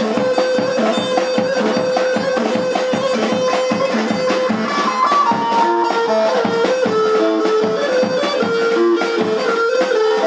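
Folk dance music: a melody held on one note for the first few seconds, then moving in short steps, over a steady, even beat.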